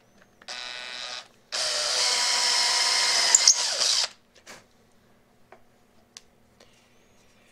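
Electric drill run twice: a short, quieter burst, then a louder run of about two and a half seconds that stops suddenly.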